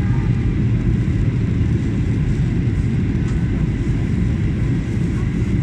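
Cabin noise inside a Boeing 737-800 on approach: a steady low rumble of its CFM56-7B turbofan engines and the airflow over the fuselage, with a faint steady high whine.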